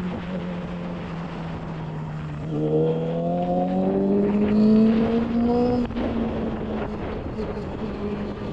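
Yamaha YZF-R6 inline-four sportbike engine under way. The engine note eases slightly, then rises steadily for about three seconds as the bike accelerates, drops abruptly just before six seconds in, and settles to a steady note. Wind noise rushes over the microphone throughout.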